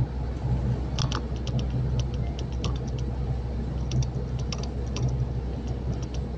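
A truck engine runs with a steady low drone inside the cab, under irregular light clicking and rattling.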